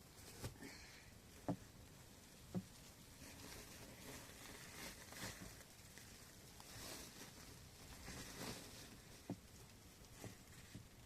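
Faint handling sounds: a few sharp knocks, about three in the first few seconds and one more near the end, with soft rustling swells in between.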